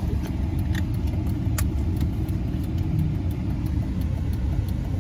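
Steady low rumble of a vehicle driving, heard from inside the cabin: engine and tyre noise with faint scattered clicks.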